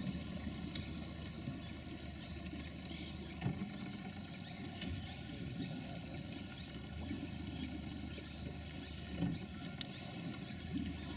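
A steady low motor hum with a continuous high-pitched whine above it, and a couple of faint knocks.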